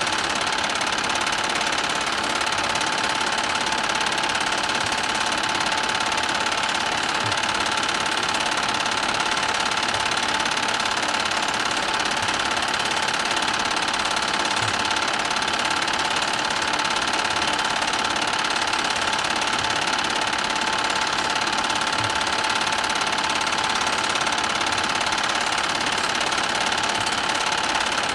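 Film projector running with a steady mechanical whir, with a faint low tick about every seven seconds.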